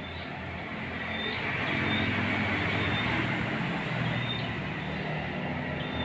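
A motor vehicle engine running, its hum growing louder about a second in and staying loud over a broad rushing noise. Short high bird chirps come every second or so.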